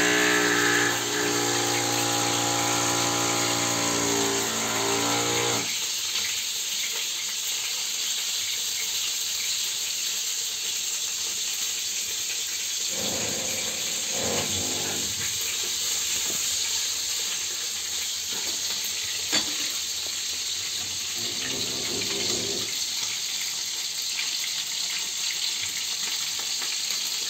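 A neighbour's electric drill whines steadily through the wall, then cuts off about six seconds in. After that, a steady hiss of cutlets frying in a pan on the gas hob, with a sharp tick about two-thirds of the way through.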